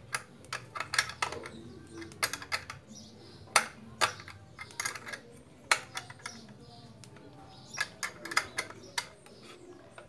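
Irregular sharp clicks, clinks and light knocks of a wrench on bolts and of wooden boards being handled, as a small motor is tightened onto a wooden frame.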